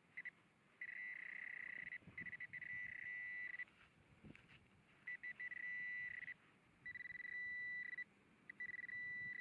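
Hand-held metal detector pinpointer buzzing with a steady high-pitched tone in about five spells of a second or so, switching on and off as the probe is pushed through loose soil over a buried piece of metal, which proves to be aluminium scrap. Faint rustling of soil between the buzzes.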